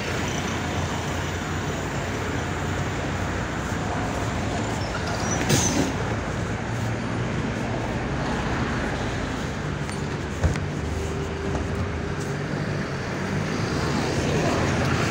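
Running noise heard aboard a MAZ 105.065 articulated city bus: steady engine hum and road rumble. There is a short knock about five and a half seconds in and a sharp click about ten and a half seconds in.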